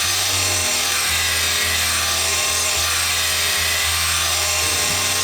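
Drill-driven blade-sharpening attachment, run at high speed, grinding along the cutting edge of a steel lawnmower blade: a steady, loud grinding that holds at an even level throughout.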